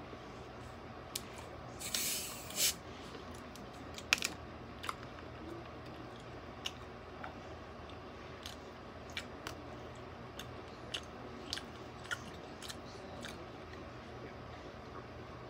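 Close chewing of crunchy squid, with scattered sharp crunches and mouth clicks. About two seconds in, a short fizzing hiss as a plastic soda bottle's cap is twisted open.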